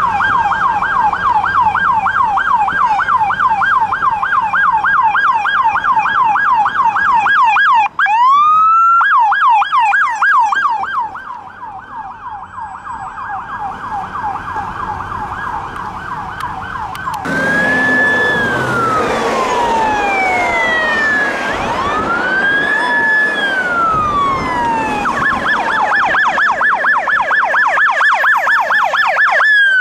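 Emergency vehicles' electronic sirens on a fast yelp, about four sweeps a second, for the first half. About halfway through they change to slow rising-and-falling wails, with two sirens overlapping. Near the end they go back to the fast yelp.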